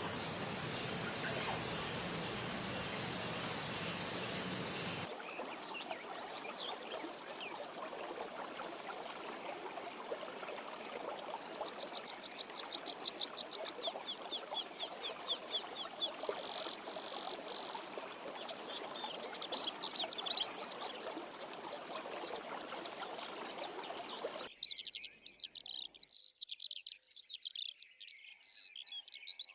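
Songbirds singing and chirping over a steady background hiss, in several spliced recordings that change abruptly twice. The loudest part is a fast, high trill about twelve seconds in. Dense chirping from many birds comes near the end.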